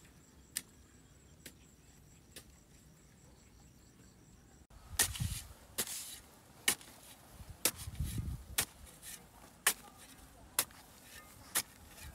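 Hand hoe chopping into dry, clumpy, stony soil: a series of sharp strikes about once a second, some with a dull thud as the blade bites in, louder and quicker after about five seconds. Insects chirring faintly in the first few seconds.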